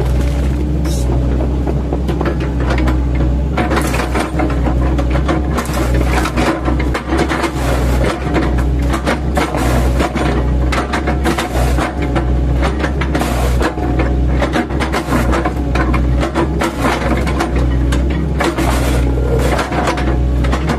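An 8-ton mini excavator's diesel engine running steadily under load, with frequent irregular cracks and knocks as the chipping blades on its bucket teeth chop into oil palm trunks.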